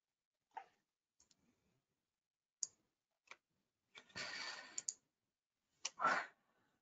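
Scattered computer mouse clicks, a handful of sharp short clicks spread out, with a short hiss about four seconds in and another brief soft sound near six seconds.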